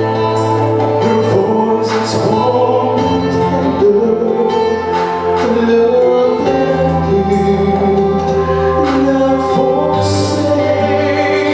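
Male solo vocalist singing through a microphone and PA over an instrumental backing track, with held bass notes changing every second or two.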